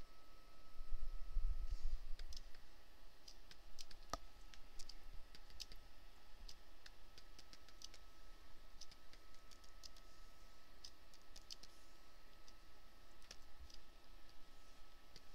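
Computer mouse clicking irregularly, a few clicks a second, each click setting a point of a polygonal lasso selection. Under the clicks is a faint steady high whine, and there is a brief low thump about a second in.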